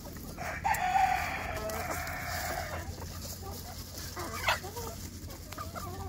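A native country-chicken rooster crows once, a long call of about two and a half seconds starting about half a second in, over the soft clucking of a flock of hens. A short, sharp squawk follows about four and a half seconds in.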